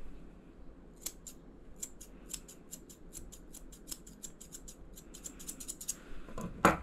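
Grooming scissors snipping through a Border Collie's coat in a quick run of sharp snips, about four a second. A single louder knock comes near the end.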